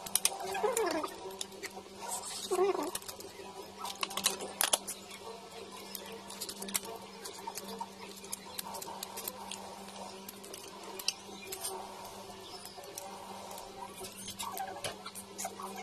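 Cooked crab being eaten by hand: shell pieces snapping and clicking as claws and legs are pulled apart, with sucking and chewing close to the microphone. A steady low hum runs underneath.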